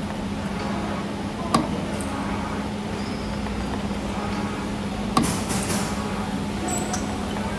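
ST25-11 CNC camless spring forming machine running while it forms 1.6 mm wire double-hook springs: a steady hum with a sharp metallic clack twice, about three and a half seconds apart.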